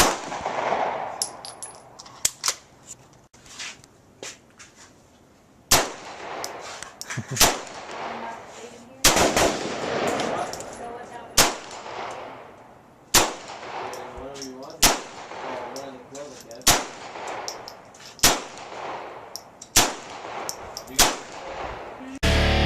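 A string of gunshots, about a dozen, fired roughly every one and a half to two seconds, each with an echo trailing after it, and a few fainter clicks before them.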